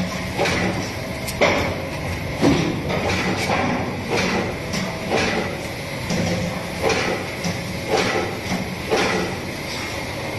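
A series of irregular knocks and thuds, roughly one a second, over a steady low hum.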